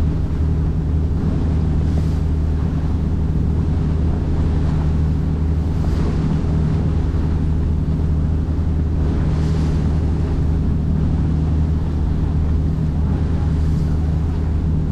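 Boat engine running at a steady, unchanging drone while underway, with water rushing past the hull and wind on the microphone. The water noise swells briefly about every four seconds.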